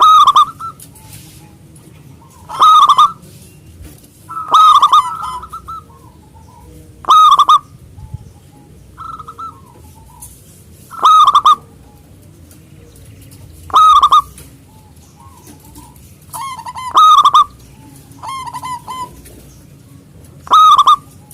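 Zebra dove (perkutut) singing its loud cooing song, about nine full phrases repeated every two to three seconds, with softer short coos in between.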